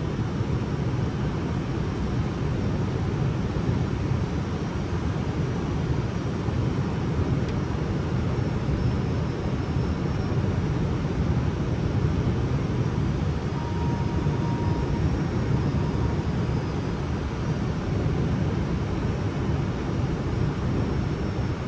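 Steady rush of airflow and engine noise on the flight deck of an Airbus A320 descending on approach, an even low roar without breaks.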